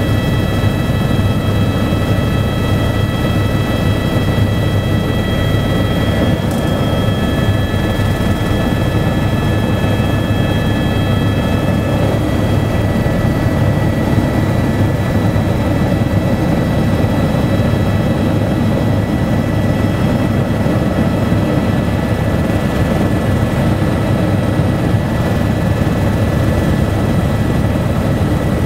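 Helicopter in flight heard from inside the cabin: a steady, loud rumble of rotor and engine with a thin, high turbine whine of several steady tones over it.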